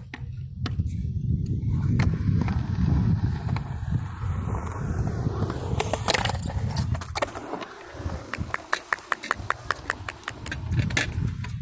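Skateboard wheels rolling over concrete with a low rumble, a sharp scrape about six seconds in, then a quick, even run of clicks.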